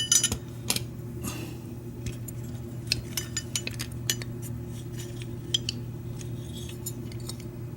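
Small metal parts of a Schlage F-Series knob lock clicking and clinking as they are handled and fitted back together, scattered light clicks over a steady low hum.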